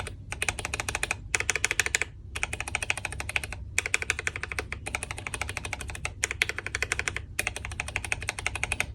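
Mechanical keyboard keys with Cherry-profile keycaps pressed rapidly over and over in runs of about a second, with short pauses between runs. This compares a south-facing switch, where the key travels fully and sounds clean, with a north-facing one, where the Cherry keycap catches on the switch housing and the stroke sounds choked.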